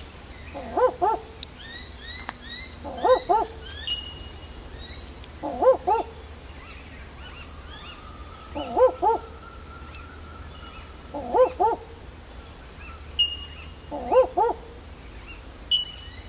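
Barking owl giving its dog-like double 'woof-woof' call six times, a pair of short notes about every two and a half to three seconds; the recordist takes it to be calling for a mate. Smaller birds chirp and whistle faintly in the background.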